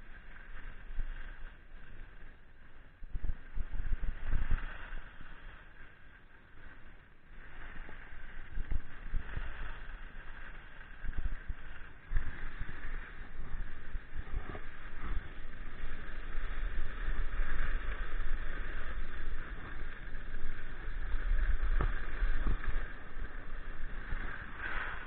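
Wind buffeting an action camera's microphone with skis hissing over groomed snow in a fast straight downhill run, with irregular low thumps. It grows louder from about a third of the way in as speed builds toward 24 knots.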